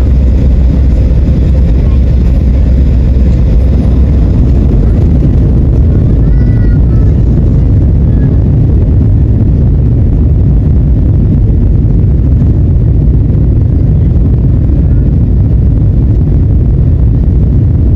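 Airliner cabin noise: the steady, loud rumble of the jet engines and rushing air, heard from inside the passenger cabin.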